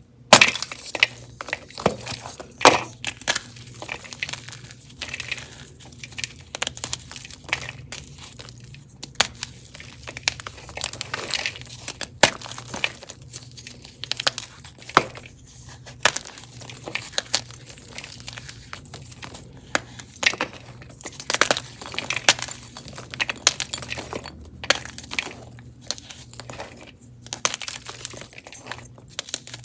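Gym chalk being crushed and crumbled close to the microphone: a busy run of irregular, sharp crunches and crackles, with louder snaps scattered through.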